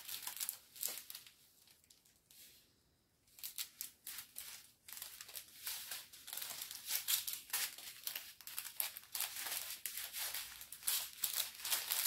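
Small clear plastic bags of diamond painting drills crinkling and rustling as they are handled and sorted, with a short lull about two seconds in.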